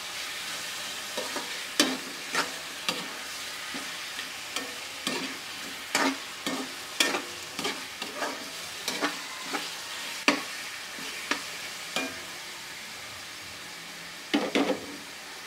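Chicken pieces sizzling in hot oil in a metal wok while being stirred, the spatula knocking and scraping against the pan about once or twice a second, with a quick double clatter near the end.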